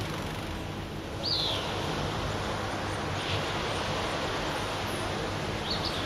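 Small waves washing onto a sandy beach, a steady rush of surf. A bird gives short high chirps about a second in, again around three seconds, and twice near the end.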